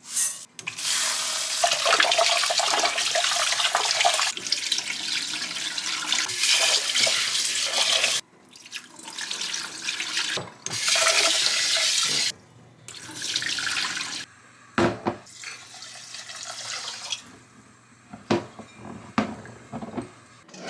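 Water running from a tap into a sink: one long run of about seven seconds, then several shorter runs with brief stops between them. A few small knocks come near the end.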